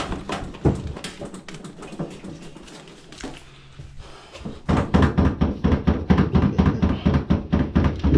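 Scattered light clicks and knocks from handling washer panels and parts. A little past halfway, a loud, fast rhythmic beat with heavy bass cuts in suddenly and keeps going.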